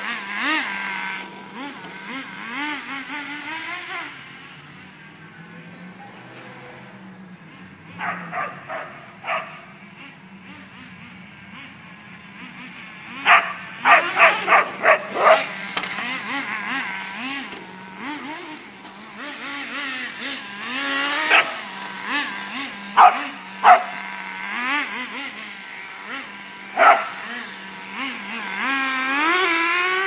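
Small nitro RC car engine (HPI RS4 3 Evo's T-15 glow engine) idling and revving, its whine rising and falling repeatedly, with a long rising rev near the end as the car accelerates away. A dog barks in short bouts several times over it.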